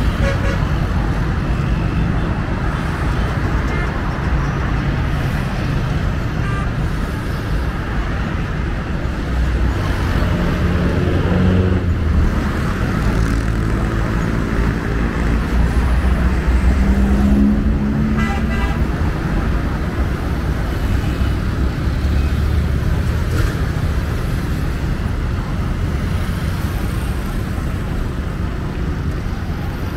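City road traffic: the engines of passing cars and buses running in a steady rumble, one engine rising in pitch about ten seconds in, with short horn toots.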